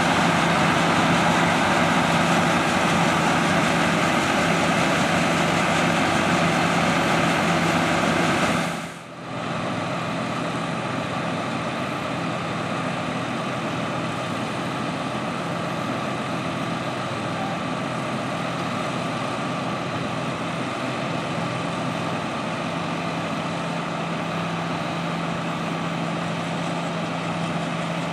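Heavy diesel engines idling steadily while a fertilizer tender truck's conveyor loads a John Deere R4038 spreader's hopper. The first nine seconds are louder, with a strong hiss. The sound then dips briefly and carries on steadier and a little quieter.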